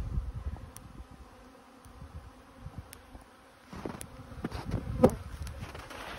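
Swarm of honeybees buzzing in flight around their hives on a winter cleansing flight, over a low rumbling noise. Single bees pass close to the microphone from about four seconds in, their buzz rising and falling in pitch, the loudest just after five seconds.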